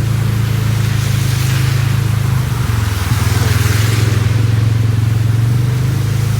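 Car driving through floodwater: a steady low engine drone, with a rushing hiss that swells about one to four seconds in and then eases.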